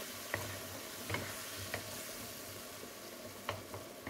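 Diced potatoes and vegetables with grated tomato sizzling in a nonstick frying pan while a wooden spatula stirs them, with a few light knocks of the spatula against the pan.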